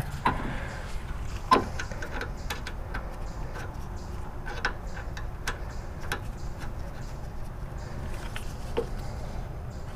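Light, scattered metal clicks and clinks of a bolt and suspension parts being handled and fitted by hand at a car's rear strut mount, over a steady low hum.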